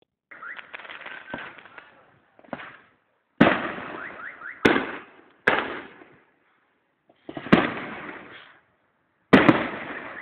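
Aerial fireworks shells bursting: five loud bangs one to two seconds apart, each followed by crackling that fades away, after softer crackling in the first two seconds.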